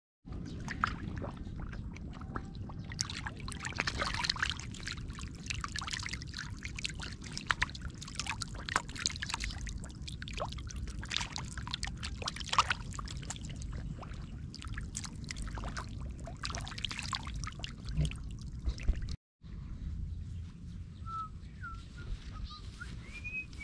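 Catfish thrashing and flapping in shallow muddy water, a dense run of sharp splashes and slaps. After a cut near the end it is quieter, with a few short bird chirps.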